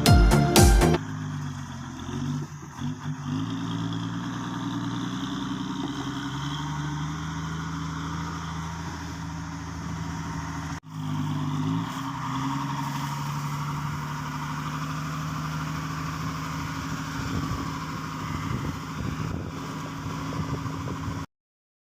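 A heavy vehicle's engine idling steadily, its speed stepping up slightly about three seconds in and settling lower again about halfway through, with a brief sudden break just before that.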